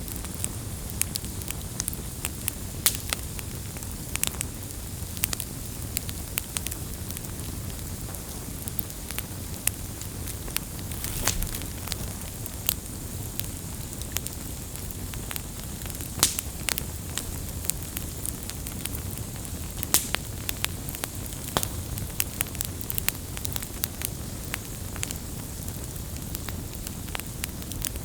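Wood fire burning, crackling with irregular sharp pops over a steady low rumble of the flames.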